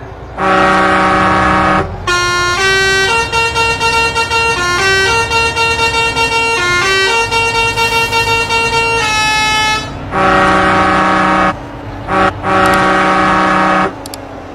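Truck's 'telolet' multi-tone musical horn: a steady chord blast of over a second, then a tune of stepped notes for about eight seconds, then two more long chord blasts with a short toot between them.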